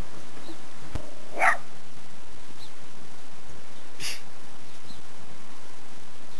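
Small black-and-tan terrier giving two short, sharp barks, one about a second and a half in and one about four seconds in.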